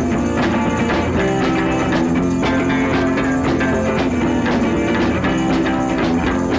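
Background music, a band with guitar and drums and a steady beat.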